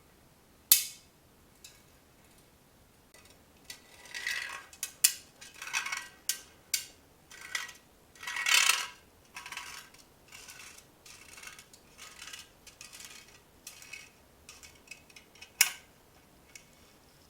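Sharp metallic clicks and scraping rattles of a magnetic cable-routing guide being fed and drawn through a bicycle frame tube. There is one loud click about a second in, a busy stretch of clicking and scraping in the middle, and lighter ticks afterwards.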